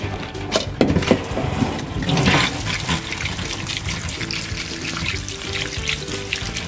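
Tap water running and splashing into a stainless steel bowl of freshwater crayfish in a sink as they are rinsed, with a few short knocks of the bowl and shells.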